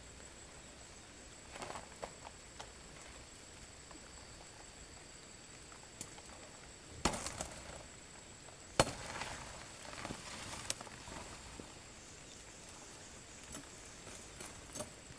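Scattered sharp woody knocks and snaps over a steady faint hiss with a thin high whine. The two loudest knocks come about seven and nine seconds in.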